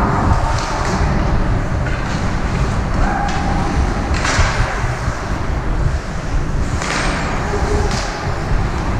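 Ice hockey game sounds in an arena: a steady low rumble of rink noise, with several short scraping hisses, like skate blades cutting and stopping on the ice, a few seconds apart.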